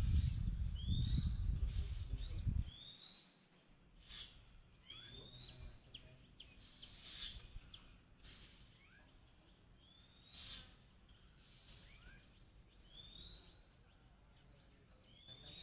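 A wild sogon bird calling over and over, each call a short upward-sweeping whistle repeated every second or few. A low rumbling noise covers the first couple of seconds and cuts off suddenly.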